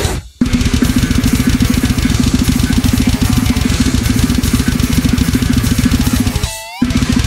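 Drum kit played at extreme speed, with a machine-gun double bass drum and cymbals, over a technical death metal backing track. The music drops out briefly just after the start, and again near the end for a short sliding note.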